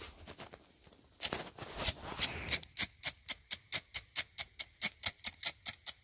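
Ferrocerium rod scraped with a steel striker: a few longer scrapes, then quick, even strokes at about four a second.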